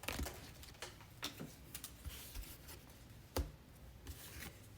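Faint, scattered clicks and taps of trading cards and card packs being handled, a few sharp ones spread through, the loudest about three and a half seconds in.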